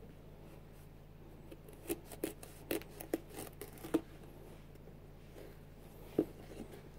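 A screwdriver prying and scraping into a Nike Air Max 90 sneaker near the heel collar. A quick run of short scrapes and clicks comes about two to four seconds in, and one sharp click comes near the end.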